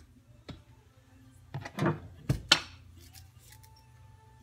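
Hand tools being handled on a wooden workbench: a few sharp knocks and clanks, loudest about two seconds in, as a rubber mallet is picked up.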